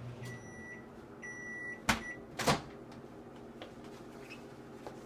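Microwave oven finishing its heating cycle: the running hum cuts off, it gives two high end-of-cycle beeps, then two sharp clacks follow, the door being released and opened.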